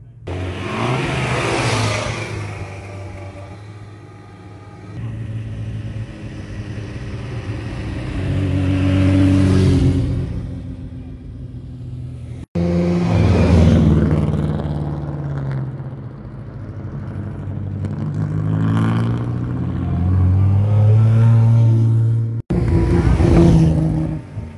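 Classic cars driving past one after another, their engine notes swelling and fading with each pass and rising and falling in pitch. The sound breaks off suddenly twice between passes.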